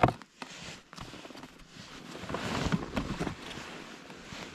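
Soft rustling and crunching of winter clothing and boots shifting on packed snow, with a few scattered small clicks and a denser stretch of rustling in the middle.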